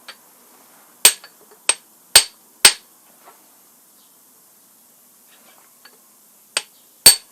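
Hammer blows on a brass punch, six sharp ringing metallic strikes: four in quick succession in the first few seconds, then two more near the end. The punch is driving out a tapered gib on a Rockford shaper's cross slide.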